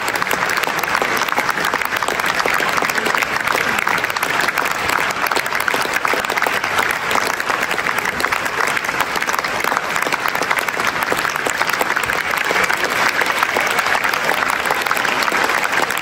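Theatre audience applauding: a dense, steady wash of many hands clapping that keeps going without a break.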